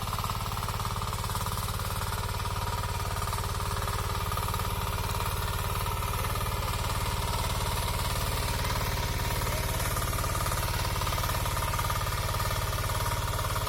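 Engine of a hand-held ploughing machine (power tiller) running steadily, a rapid even putter.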